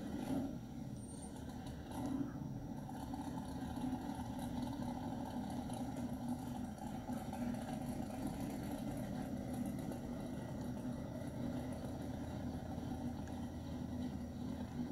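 Nostalgia Pro Street Chevrolet Camaro drag car's engine running steadily at idle, a low, slightly uneven rumble.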